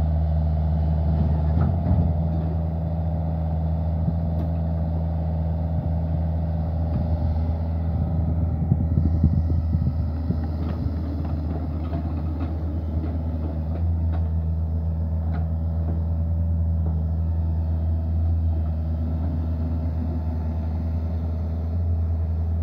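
Hitachi ZX48U mini excavator's diesel engine running steadily at work, with scattered knocks and clanks as the machine moves and digs.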